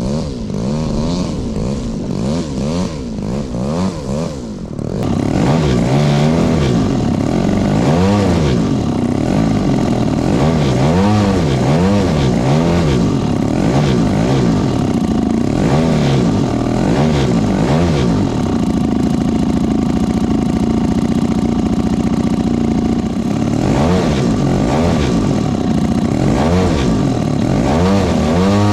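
Petrol engine of a scale Piper Cub 'Grasshopper' RC model plane, freshly rebuilt, running on the ground with its speed swinging up and down every second or two. It is much louder and closer after about five seconds, when it is heard from inside the model's fuselage, and right at the end it revs up sharply.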